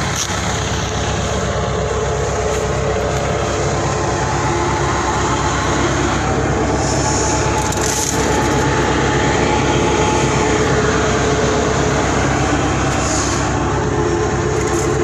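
Tractor engine running steadily under load while pulling a maize planter, a loud, even drone with a fast mechanical pulsing.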